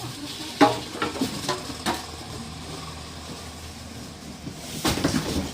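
Handling of a boxed refrigerator being unpacked: a string of sharp knocks and clatters, about five in the first two seconds, then a quick burst of them near the end, over a steady low rumble.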